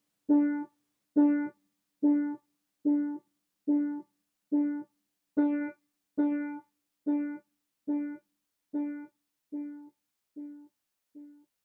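A single piano key struck again and again, about fourteen times, the same note each time, with the last few notes growing quieter. The key is pressed with the oblique or 'slapping' touch, depressed from a diagonal angle rather than attacked from above, which gives a softer sound for the same force.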